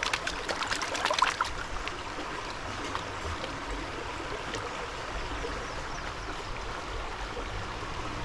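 Fast-flowing creek rushing over boulders, a steady running-water noise. A quick run of splashes and clicks comes in the first couple of seconds.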